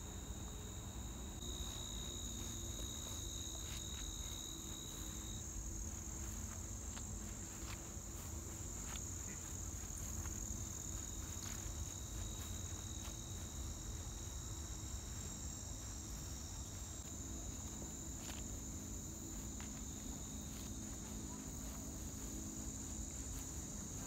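Insects chirring steadily in a high-pitched chorus of two continuous tones, typical of late-summer crickets and katydids, over a low rumble and a few faint ticks.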